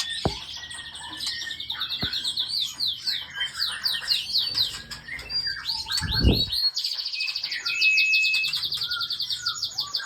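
Caged songbirds chirping and trilling, with fast runs of repeated high notes throughout. A brief low thump about six seconds in.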